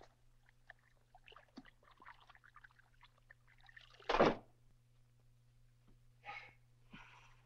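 Water splashing in a bathtub: faint sloshing, one loud splash about four seconds in, and two smaller splashes near the end.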